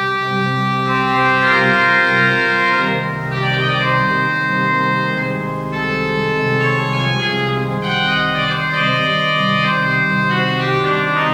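Organ music: sustained full chords that change about every two to three seconds.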